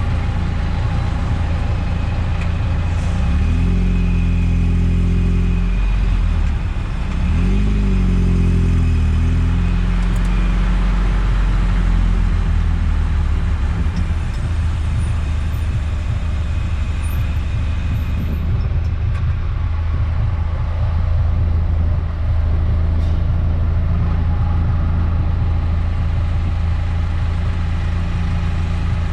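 Eunos Roadster's four-cylinder engine running steadily, with the revs rising and falling twice in the first ten seconds.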